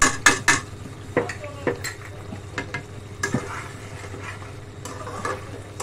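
A metal spatula stirs and scrapes through a thick simmering curry masala in a metal kadai, clinking against the pan over a sizzle from the pot. The loudest clanks come in the first half second, with lighter scrapes and clinks after.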